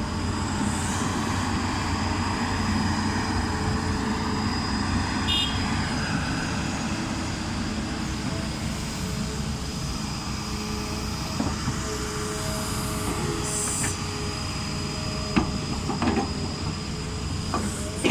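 Heavy diesel earthmoving machinery running steadily, with a brief high metallic squeal about five seconds in and a few sharp knocks near the end.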